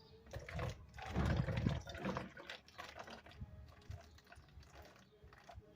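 Liquid being poured and splashing, with light clicks and knocks of a bottle and containers being handled.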